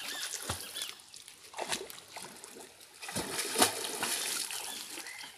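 River water splashing as a person moves about in it, with several sharp splashes through it.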